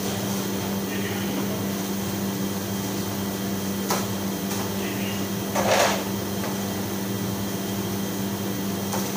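Steady electrical hum and fan noise from commercial kitchen equipment. There is a sharp click about four seconds in and a brief, louder burst of noise around six seconds in.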